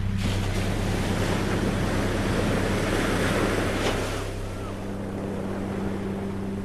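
Ocean wave breaking and washing through: a rush of surf that comes in suddenly and fades after about four seconds, over a steady low hum.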